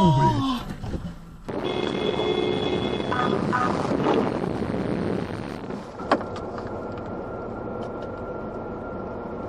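Road and engine noise of a moving car heard through a dashcam, a steady rushing hum. One sharp knock comes about six seconds in, and a thin steady tone sounds through the last few seconds.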